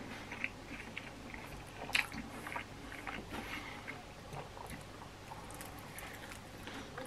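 A person chewing a mouthful of cheeseburger pizza, quiet wet mouth clicks and smacks, with one sharper click about two seconds in; he bites into the slice again near the end.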